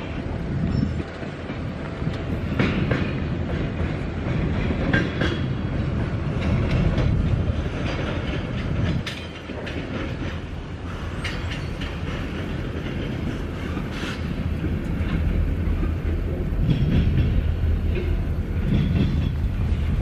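Train rolling past, a steady low rumble with the wheels clicking and clattering over the rail joints.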